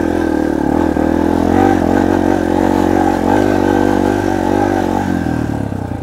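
Dirt bike's single-cylinder four-stroke engine pulling in first gear, its pitch wavering up and down with the throttle. About five seconds in it drops off and gets quieter.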